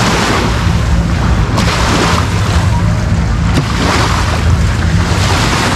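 Steady low hum of a boat motor running, mixed with surf and wind buffeting the microphone.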